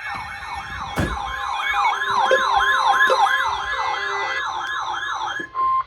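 A fast electronic siren sweeping up and down about three times a second, with a steady Emergency Alert System attention tone sounding with it and a sharp click about a second in. The siren stops just before the end, leaving a short burst of the steady alert tone.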